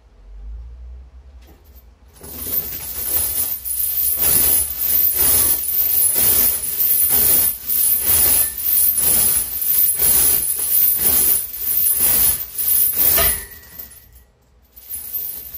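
Heavy steel chains hung from a barbell jangling and clinking in a steady rhythm as they lift off and pile back onto the floor with each rep of a fast decline bench press set. The clinking starts about two seconds in and stops a couple of seconds before the end.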